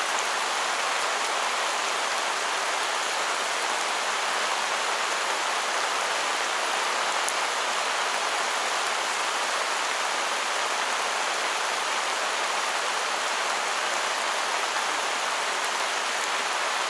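Heavy downpour: rain falling steadily in an even hiss, without a break.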